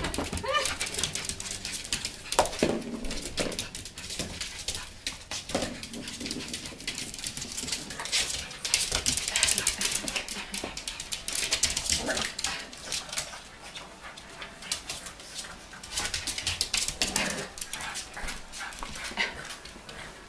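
Pug puppy vocalizing now and then as it plays with a flat mop, while the mop head scrapes and knocks over a wooden floor.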